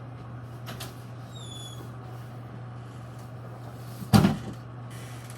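A single loud thump about four seconds in, like something being set down or shut, over a steady low hum. A few faint clicks and rustles come before it.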